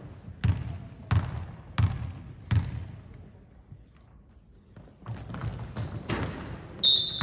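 A basketball being dribbled on a hard indoor court: four echoing bounces about two-thirds of a second apart, then a short lull. After that, sneakers squeak on the floor and more ball thuds follow near the end.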